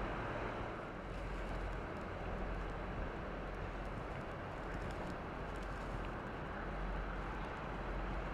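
Steady outdoor background noise: a low rumble and an even hiss, with no distinct event.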